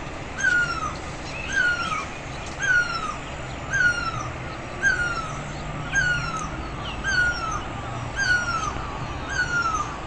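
A bird giving a short, downslurred call over and over at an even pace, about once a second.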